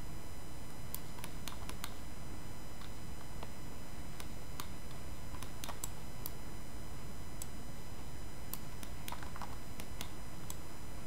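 Sparse, irregular clicks of a computer mouse and keyboard being worked, over a steady low hum.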